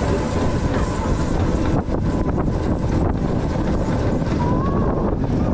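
RMF Dragon roller coaster train running along its track: a steady rumble with wind buffeting the on-ride microphone. A brief high whine rises about four and a half seconds in.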